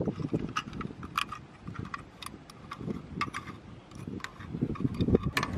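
Metal pot-support arms of a portable single-burner gas camping stove being swung open and set by hand: a scatter of light, irregular metallic clicks and taps.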